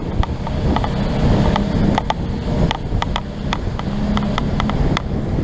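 A small motorboat's engine running steadily under way, with rushing water and wind noise and scattered sharp ticks and taps over it.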